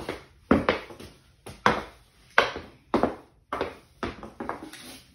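Goalie stick blade knocking a hockey puck back and forth on a concrete floor in stickhandling: a series of sharp knocks, about two a second, unevenly spaced.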